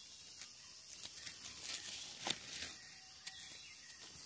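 Faint rustling and small snapping clicks of dry leaves and twigs in forest undergrowth while wild mushrooms are being picked, over a thin steady high hiss.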